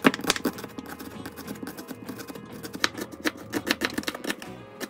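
Chef's knife slicing an onion on a cutting board: a quick, uneven run of sharp knocks as the blade meets the board, several a second.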